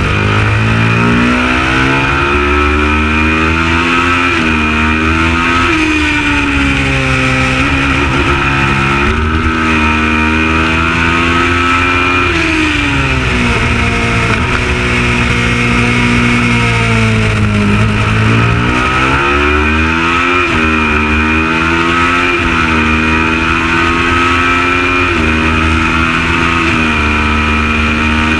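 Kawasaki ER650 parallel-twin race motorcycle engine at racing speed, its pitch climbing under acceleration and dropping again on gear changes and braking, over and over.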